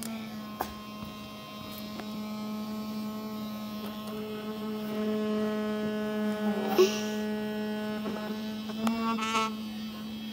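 Electric toothbrush running with a steady, even-pitched hum, with a few handling knocks and a sharp knock about seven seconds in.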